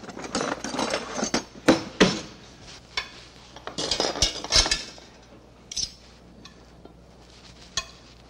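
Kitchen clatter: serving utensils clinking and knocking against a serving platter and a metal stockpot in irregular bursts. It is busiest in the first two seconds and again around four to five seconds in, then thins to a few single clinks.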